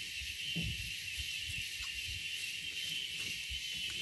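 Steady, high-pitched chirring of insects from the riverside vegetation, with a few soft low knocks from handling on the boat.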